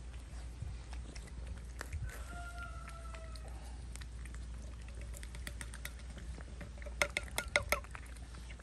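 Cats eating wet food from a tin. One cat gives a single long, slightly falling meow about two seconds in. Near the end there is a quick run of sharp clicks over a fainter drawn-out cat call.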